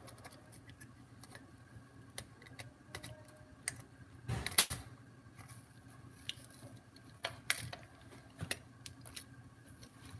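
Scattered small plastic clicks, scrapes and knocks of a screwdriver prying at a computer mouse's plastic shell, with a louder bunch of them about four and a half seconds in.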